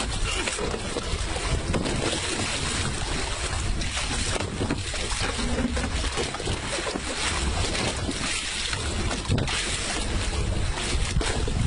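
Steady wind noise buffeting the microphone, over sea water sloshing around a small open boat.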